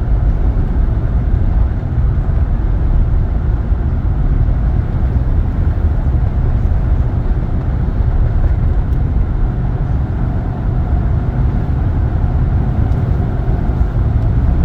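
Steady low rumble of a vehicle being driven on a snowy road: engine and tyre noise, strongest in the bass.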